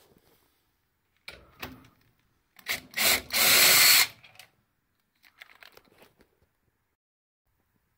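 A power drill spinning a 13 mm socket on a burner mounting nut: a few knocks and two short blips of the motor, then a steady run of just under a second, followed by faint rattling.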